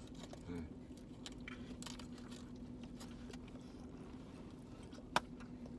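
Quiet chewing and faint crinkles of foil-wrapped burritos being eaten, with scattered small ticks over a steady low hum, and one sharp click about five seconds in.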